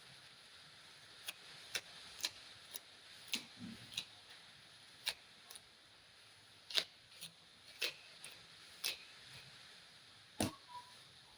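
Irregular light clicks and ticks, about one or two a second, from a comb being handled while hair is combed and sectioned, with one sharper click near the end.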